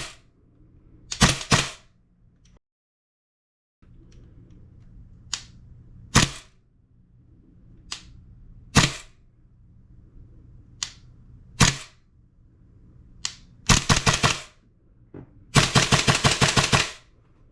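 Gas blowback airsoft rifle (Tokyo Marui MWS with a Modify-Tech two-stage trigger box) running on MAP gas, firing sharp single shots with the bolt cycling. Near the end come two fast strings of rapid shots.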